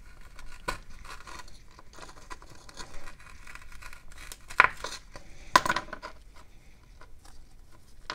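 Small screwdriver scraping and prying at the cement and ceramic body of a 10-watt wirewound power resistor, a gritty scratching broken by a few sharp clicks, the loudest about four and a half and five and a half seconds in.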